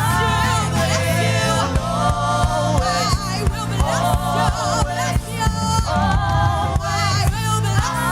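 Gospel worship song: singing voices over a steady bass line, with a drum beat coming in about two seconds in.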